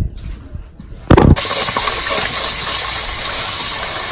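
A knock about a second in, then a kitchen tap running steadily, water pouring over raw chicken pieces in a plastic bowl as they are rinsed.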